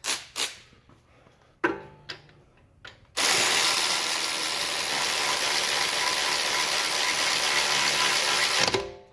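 Cordless electric ratchet running steadily for about five and a half seconds, driving a nut onto a rear suspension bolt, then stopping just before the end. A few light clicks of tool handling come before it.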